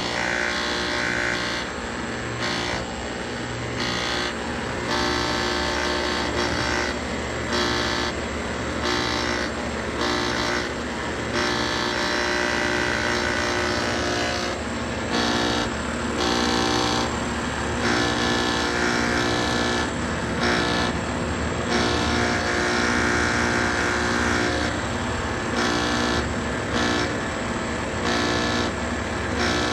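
Central air-conditioner outdoor condenser unit running with a loud, strange droning hum rich in overtones, a higher band swelling and fading every second or two; the owner suspects the compressor is starting too early.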